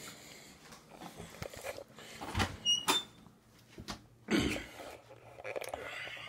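A few knocks and rustles of things being handled and moved, with a brief high squeak about three seconds in.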